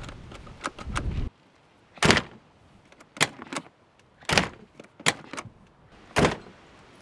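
Newly fitted rear door handle and latch of a Citroën camper van clicking and clunking as it is turned and the rear door worked: a series of sharp separate clicks spread over a few seconds. Wind rumbles on the microphone for about the first second.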